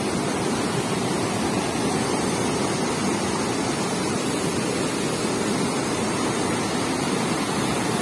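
Steady rushing of white water cascading over boulders in a rocky mountain waterfall.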